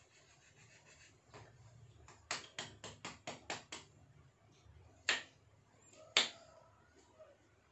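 Kitchen knife slicing a green chili on a wooden cutting board: a quick run of about six knocks of the blade on the board, about four a second, then two louder single knocks.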